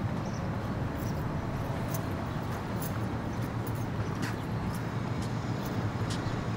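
Steady low rumble of outdoor city ambience, like distant traffic, with a few faint clicks.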